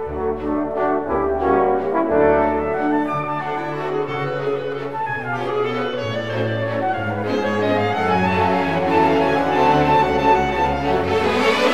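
Orchestral background music led by brass, French horn-like held notes over strings, swelling toward the end.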